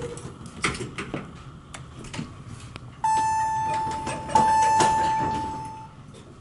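Elevator hall lantern chime sounding twice, about a second and a half apart, each a clear electronic ding that fades slowly, with the red down arrow lit: the signal for a car about to travel down. A few light clicks come before it.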